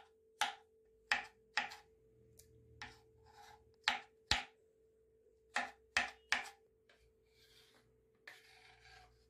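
Kitchen knife chopping seedless tomatoes on a plastic cutting board: about a dozen sharp, irregular knocks. Near the end comes a short scraping as the diced tomato is slid off the board into a plastic bowl.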